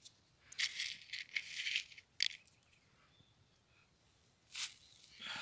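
Small cucumber seeds rattling and rustling as they are shaken out of their container, in several short bursts about a second in and again near the end.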